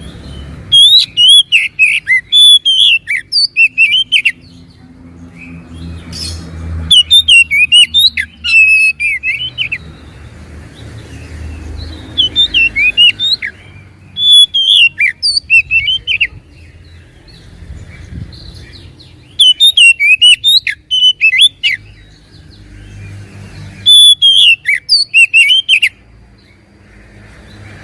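Oriental magpie-robin (kacer) singing in about six bursts of rapid, varied whistled phrases, each a few seconds long, with short pauses between them over a low background rumble.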